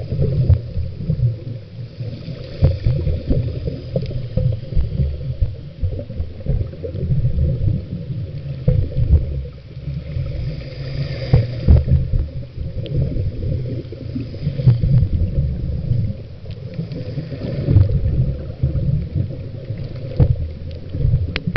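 Muffled underwater rumble and water noise against a waterproof compact camera's sealed body, uneven in loudness, with scattered clicks and a few bursts of bubbling hiss, the strongest about halfway through.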